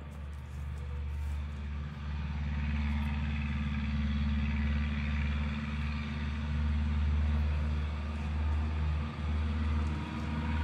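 A truck driving past, its engine and road noise growing louder about two seconds in and easing off near the end.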